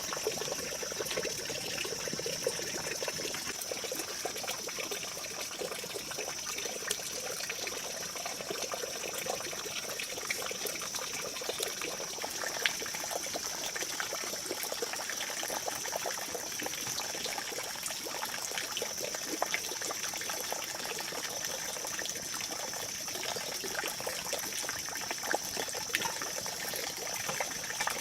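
Forest ambience: a steady trickle of running water with a high insect drone that breaks off briefly every few seconds.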